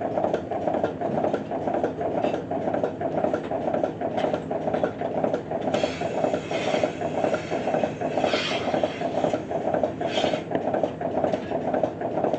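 Pipeline milking machine running, its pulsators giving a steady rhythmic pulsing. Three brief hisses of air come about halfway through.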